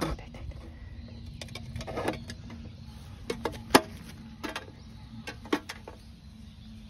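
Handheld phone camera being moved and handled: scattered short clicks and knocks, the loudest about three and three-quarter seconds in, over a low rumble and a faint steady hum.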